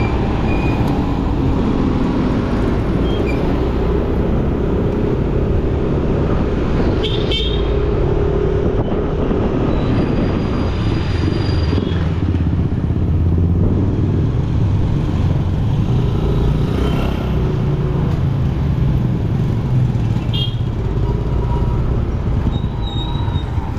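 Engine and road noise of a motor vehicle on the move: a steady drone whose engine pitch drifts up and down.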